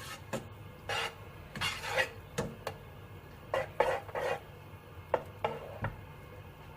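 A cooking utensil scraping and stirring in a pan as butter melts: a series of short, irregular scraping strokes.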